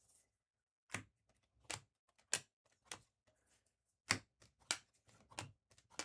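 Trading cards being flipped through and set down one at a time: a string of about eight sharp card snaps, roughly one every half second to second, with a short pause in the middle.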